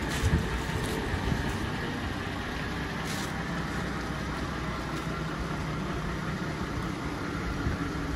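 The diesel engine of a 2005 Isuzu FTR 900 tip truck idling steadily, with a few light clicks early on and about three seconds in.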